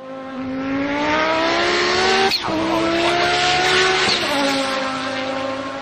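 Car engine revving up hard, its pitch climbing and then dropping sharply twice, about two and four seconds in, as it shifts up, with a brief crack at the first shift; it then holds and eases off.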